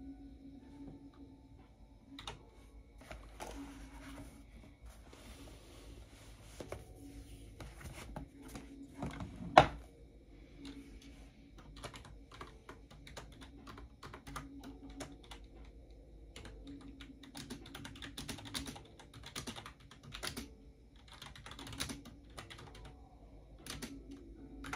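Typing on a computer keyboard in uneven bursts of keystrokes, with one much louder knock about ten seconds in.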